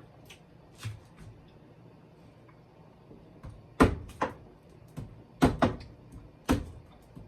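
A series of sharp knocks and clatters, about eight in all, a couple faint near the start and most of them bunched in the second half, typical of things being handled and set down in a kitchen.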